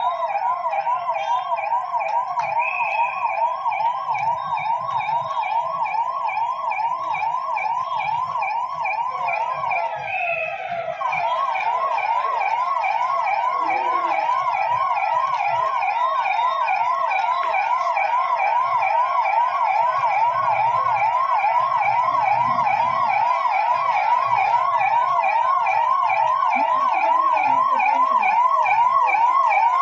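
Police vehicle siren sounding a fast yelp, about four rising sweeps a second, without a break except a brief dip about ten seconds in; after that it goes on slightly louder.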